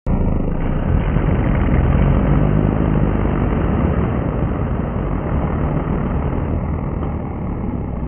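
A loud, continuous rumbling roar like a big engine, starting abruptly. It is laid in as an exaggerated sound effect for a man blowing hard against his pinched nose to clear his ears.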